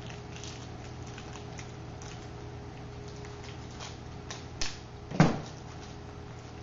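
Hands unpacking plastic toy discs: light rustling and small plastic clicks, with two sharper knocks between about four and a half and five seconds in, the second the louder, over a steady low hum.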